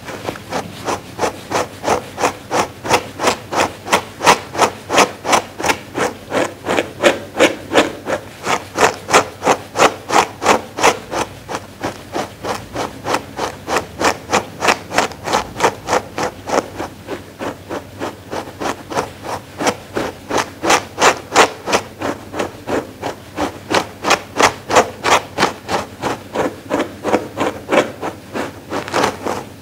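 Dog grooming brush stroked briskly and repeatedly over a fluffy fur pad, a regular scratchy brushing of about two to three strokes a second.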